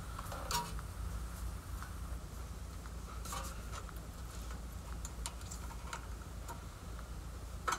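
Faint, scattered clicks of a wrench working an air-brake slack adjuster as the brake is tightened down against the drum, over a steady low hum.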